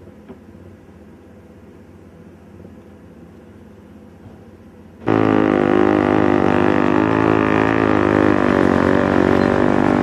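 A faint steady hum, then about halfway through, an abrupt jump to a loud vehicle engine running with a steady drone whose pitch wavers slightly.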